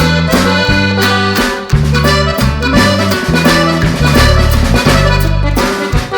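Background music with a steady beat, a bouncing bass line and a reedy melody on top.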